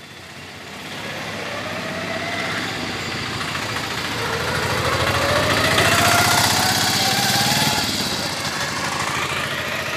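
Street traffic with an auto-rickshaw's small engine running close by. Its engine grows louder toward the middle and rises in pitch as it accelerates away.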